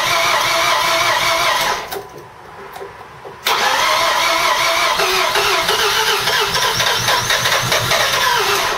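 Mazda RX-7 FD3S's freshly installed 13B twin-turbo rotary engine idling with a wavering pitch, dying away about two seconds in, then catching again suddenly a second and a half later and idling on.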